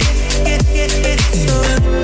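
Background music with a steady beat: deep kick drums that drop in pitch about twice a second, under held synth chords and hi-hats, in an Afrobeat-like style.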